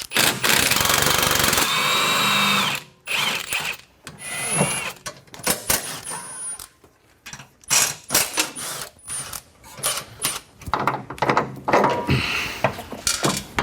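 A handheld power tool runs for about a second and a half, spinning out a bolt, then winds down with a whine. After it come scattered metallic clanks and clicks as parts are handled.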